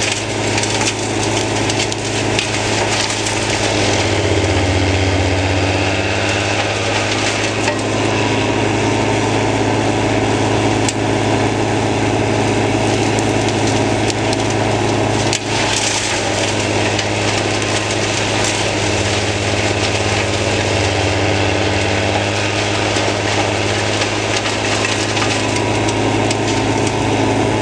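Erjo wood chipper, driven by the Kockums 85-35's engine, chipping brushwood: a steady engine drone with the crackle and crunch of branches being chewed up. The engine pulls down in pitch under load about four seconds in, and again near the two-thirds mark.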